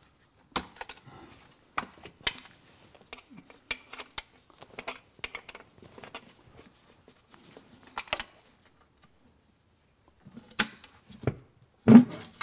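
Air cleaner housing lid being unfastened by hand: a string of sharp clicks and snaps as its spring clips are sprung open, with a heavier knock near the end as the lid shifts on the housing.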